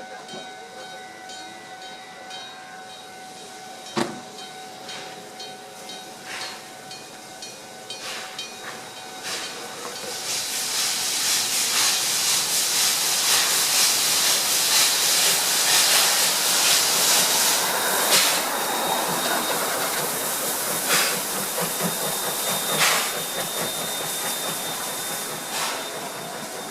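A level-crossing electric bell rings with a steady, rapidly repeating tone for the first third. Then a train comes through with a loud, rising hiss and occasional sharp clacks of wheels over rail joints, which drown out the bell.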